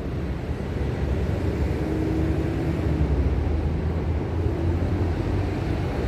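Wind buffeting the microphone on a windy seafront: a steady low rumble.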